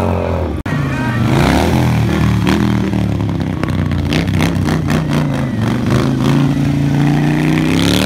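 Motorcycle engine revving hard, its pitch rising and falling, with a sudden brief break about half a second in.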